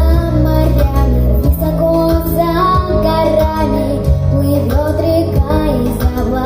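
A young girl singing a tender song with a wavering sung melody, over an instrumental accompaniment with sustained low bass notes.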